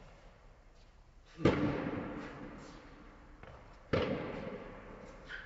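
Tennis ball struck by racquets in a rally on an indoor court: two loud sharp pops about a second and a half and four seconds in, each ringing on in the hall's echo, with fainter knocks of other hits or bounces between.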